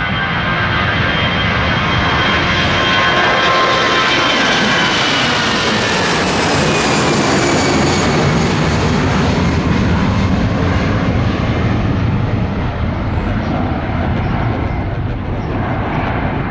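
Airbus A319 jet engines at takeoff power as the airliner passes and climbs away: a loud, steady rush with whining fan tones that slide down in pitch. The hiss swells to a peak about seven seconds in, then fades.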